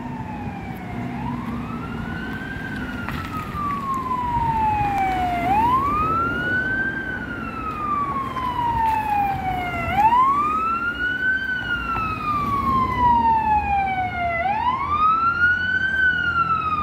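Fire truck siren wailing: each cycle rises quickly and then falls slowly, repeating about every four and a half seconds and growing louder as the truck approaches. Low road rumble from passing traffic lies underneath.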